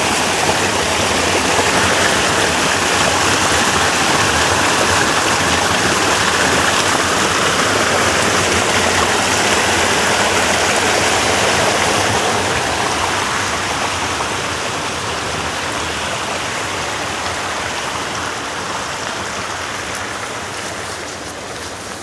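Water rushing down a small waterfall in a concrete-walled channel, a steady loud rush that fades gradually over the second half.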